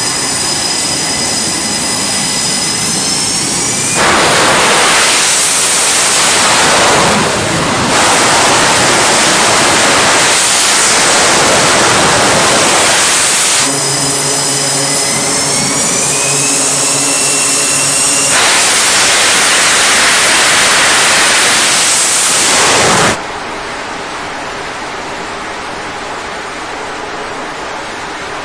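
F/A-18 Super Hornet jet engines spooling up to launch power on a carrier catapult: a high whine rises in pitch, then breaks into a loud, steady full-thrust noise. This happens twice. About 23 s in, the noise drops to a quieter steady rushing.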